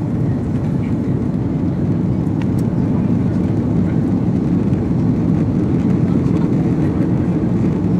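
Steady low rumble of airliner cabin noise inside an Airbus A330-300 on the ground after landing, the airframe and engine noise running at an even level.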